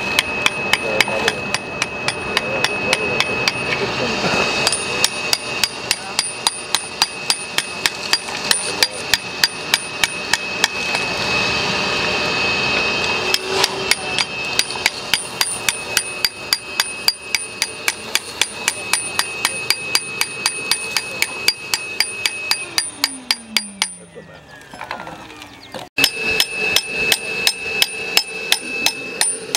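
A hand hammer strikes a steel cold chisel over and over, about three blows a second, cutting the stone of a church cornerstone away from the time-capsule box set into it. The blows pause for a couple of seconds near the end, then carry on.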